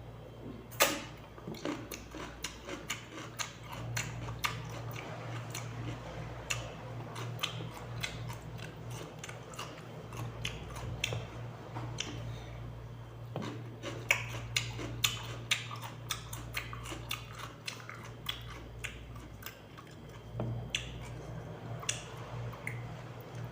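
A person chewing raw cucumber close to the microphone: crisp, wet crunches and clicks several times a second, with a sharp bite about a second in. A steady low hum runs underneath.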